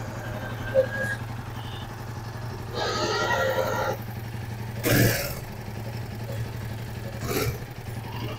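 Royal Enfield Himalayan 450's liquid-cooled single-cylinder engine idling smoothly with a steady low hum, and a brief knock about five seconds in.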